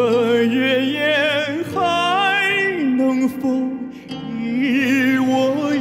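A male singer holds long, slow notes with wide vibrato over a soft, sustained instrumental accompaniment, stepping up and down in pitch. He takes a breath about four seconds in.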